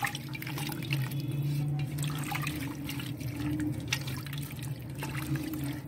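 A spoon stirring beef, onions, tomatoes and spices in water in a pressure cooker pot: irregular wet sloshing and splashing with light clicks, over a steady low hum.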